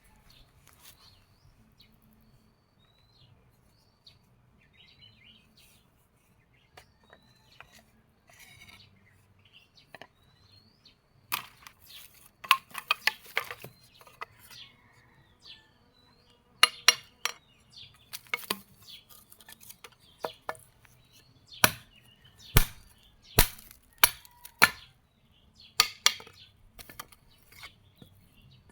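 Sharp clinking knocks, irregular and sometimes in quick clusters, starting about a third of the way in, typical of hard metal or blade strikes in knife work. Faint bird chirps are heard in the quiet stretch before them.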